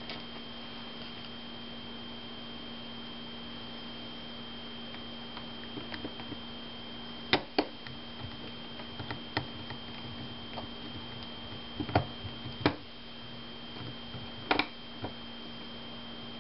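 Scattered sharp clicks and taps of a screwdriver and small screws against a laptop's plastic case as the corner screws of the bottom cover are driven back in, over a steady electrical hum with a faint high whine.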